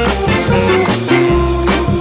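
Upbeat swing-style music with bass, guitar and a steady beat.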